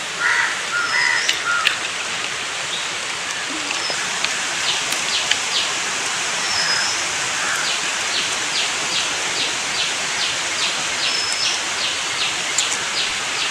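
Steady outdoor background hiss with small birds calling over it: a few brief whistles, then a run of short, quick chirps repeated about twice a second through the second half.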